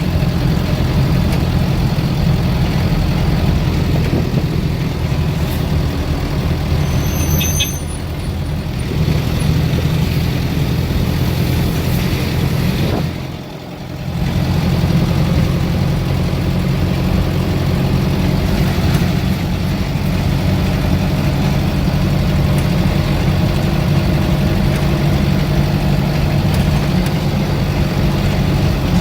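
Engine hum and road noise of a high-riding vehicle driving along, heard from inside the cab. The hum drops briefly about halfway through, then returns.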